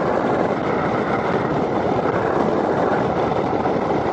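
Touring motorcycle cruising at highway speed: a steady rush of wind and road noise with the engine running underneath.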